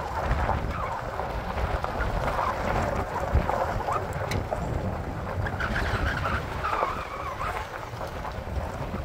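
Vehicle driving slowly over a rough, broken mountain road: a steady low rumble of engine and tyres with wind buffeting the microphone, and one short knock about three seconds in.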